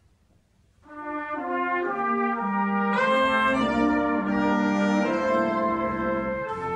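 Military concert band of brass and saxophones coming in after a short silence with held chords, growing fuller about three seconds in as more instruments join.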